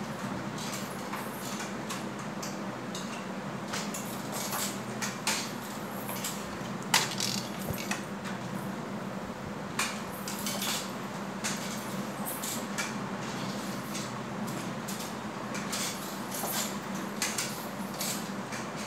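Crutches clicking and knocking on a stone floor as someone walks on them, in an uneven run of sharp taps with the loudest knock about seven seconds in, over a steady low hum.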